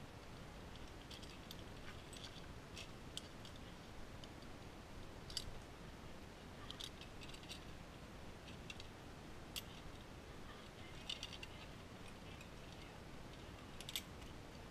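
Faint, irregular metallic clicks and clinks of carabiners and a zipline trolley being clipped onto a harness and cable, with a sharper click near the end, over a low steady hiss.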